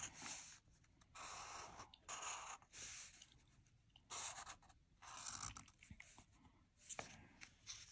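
Black Sharpie marker drawing on paper: a series of short, faint scratchy strokes with brief pauses between them, and a sharp click near the end.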